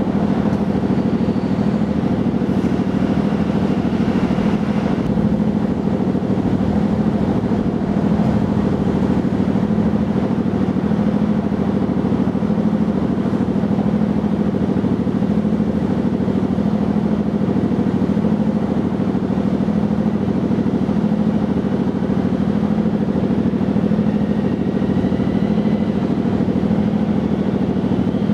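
A steady, loud low mechanical hum, like a motor running without let-up, with no change in pitch or level.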